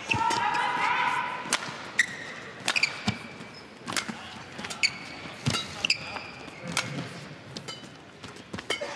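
Badminton rackets striking a shuttlecock back and forth in a fast rally, with sharp cracks about once a second or quicker. Short squeaks of court shoes fall between the hits, with a longer squeak near the start, over the steady murmur of a large hall.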